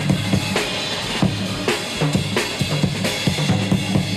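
Funk drum-kit groove, with bass drum, snare and cymbal hits repeating in a steady pattern over a bass line.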